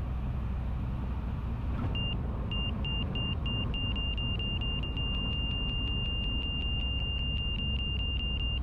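Van's RV-14's engine running at low power, a steady low drone heard inside the cockpit. From about two seconds in, a high electronic cockpit alert tone beeps on and off three or four times a second, coming with the aircraft's high oil temperature indication.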